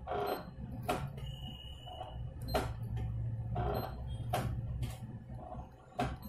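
Fingertip taps on a Canon imageRUNNER copier's touchscreen control panel: four short sharp clicks, roughly one every one and a half to two seconds, over a low steady hum.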